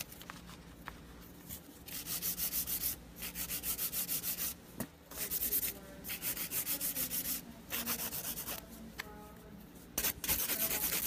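Hand nail file stroked quickly back and forth over a gel nail extension to shape and thin its free edge: runs of short filing strokes, about five a second, broken by brief pauses.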